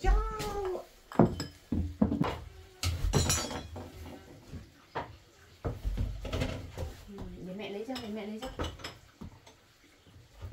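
Spoon and bowls clinking and knocking against a metal cooking pot as food is served out, a run of sharp clinks in the first few seconds, with short bits of voice in between.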